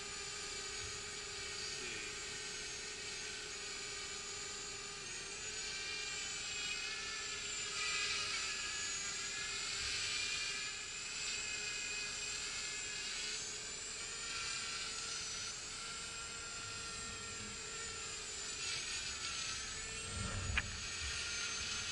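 ONAGOfly 1 Plus mini quadcopter drone in flight, its propellers giving a high-pitched whine that wavers up and down in pitch as the motors adjust to hold position and follow. A single sharp click near the end.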